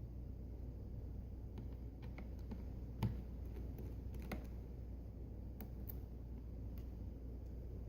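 Sparse small clicks and taps of a T5 Torx screwdriver and tiny screws being worked out of a laptop's metal back cover, with one sharper click about three seconds in, over a steady low hum.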